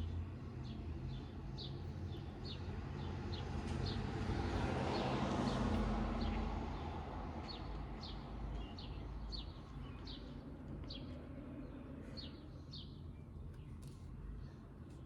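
Small birds chirping, short high chirps repeating about twice a second, with a rushing noise that swells and fades in the middle.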